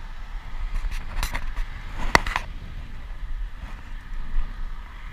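Bicycle riding on a paved path: steady wind and rolling rumble on a bike-mounted camera's microphone, with a few sharp clicks or rattles about one to two and a half seconds in.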